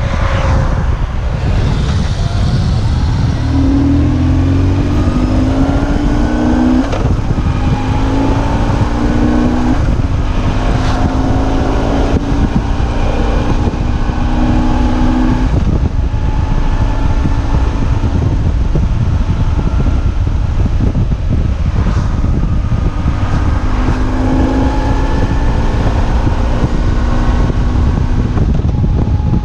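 BMW R1150GS boxer-twin engine under way, pulling up through the gears with a couple of shifts in the first half, then running at a steadier cruise. A heavy rush of wind runs under it throughout.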